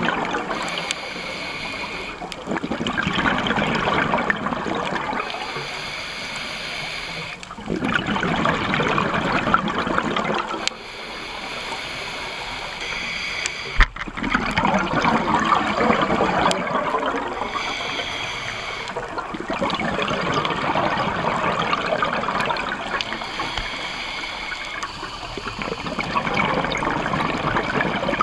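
Scuba diver breathing through a regulator underwater: a gurgling rush of exhaled bubbles about every five to six seconds, with quieter inhalations in between.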